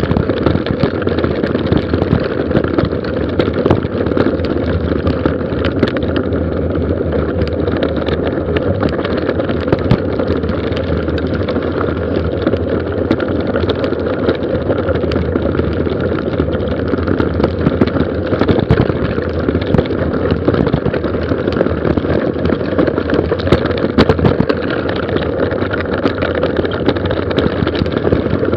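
Mountain bike descending fast on a gravel forest road: a steady low rush of tyre and riding noise, dotted with constant sharp clicks and rattles from gravel and the bike.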